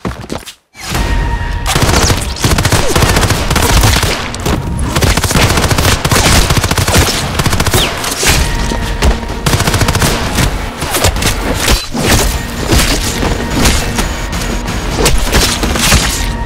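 Automatic rifle fire in long, rapid, near-continuous bursts, with heavy booming hits mixed in. It starts after a short gap about half a second in.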